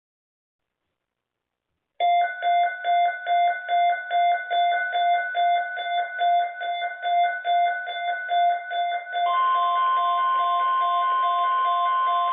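Rapid electronic alert beeping, about three beeps a second, starts abruptly after a moment of silence. About seven seconds later it gives way to a steady single-pitch tone: the NOAA Weather Radio 1050 Hz warning alarm tone that heralds an urgent weather message.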